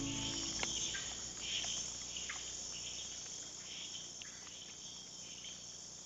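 Night-time chorus of insects chirring steadily and high, with a few faint short calls scattered through it and the whole chorus slowly fading. The tail of background music dies away at the very start.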